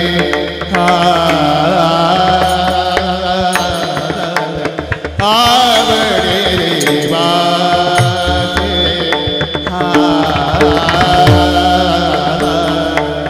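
Varkari kirtan music: small brass hand cymbals (taal) clashing in a steady beat under a sung devotional tune and sustained instrumental tones.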